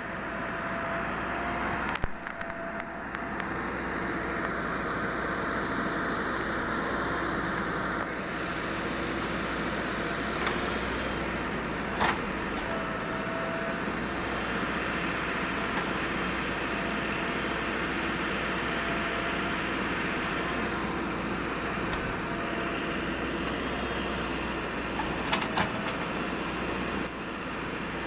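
Backhoe loader's engine running steadily, with a few sharp knocks.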